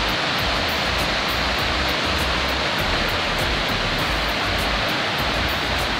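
Steady roar of the Iguazú Falls' rushing water, a dense, even noise with no change in level. Faint, fast, regular high ticks, about four a second, run above it.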